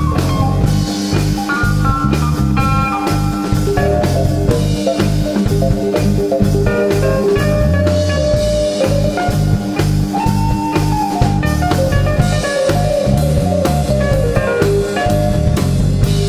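Live rock band playing an instrumental blues-rock passage: electric guitar and bass guitar over a Gretsch drum kit keeping a steady beat.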